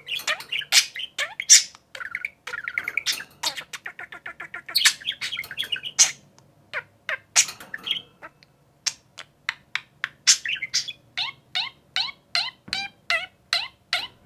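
Pet budgerigars warbling in a fast, dense chatter, which breaks up about halfway through into a run of quick, sharp chirps, a few each second.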